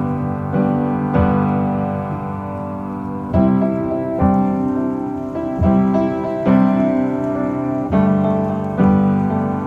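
Instrumental piano music: chords struck at uneven intervals of roughly half a second to a second and a half, each ringing and fading before the next.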